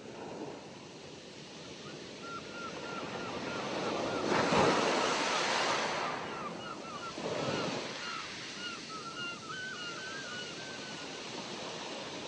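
Wind buffeting the microphone, a steady rush that swells loudest about four to six seconds in and gusts again near eight seconds. A run of short, faint high chirps sounds in the background.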